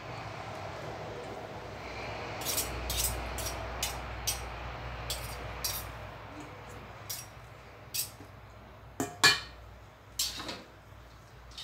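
Metal spoon and fork clinking and scraping against a stainless steel bowl while glass-noodle salad is tossed: a string of sharp clinks, loudest near the end, over a steady low hum.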